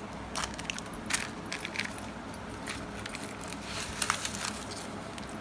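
Rustling and crinkling of a non-woven carry bag and foil-wrapped food parcels being handled and pulled out. Scattered sharp crinkles, loudest about a second in and again around four seconds in.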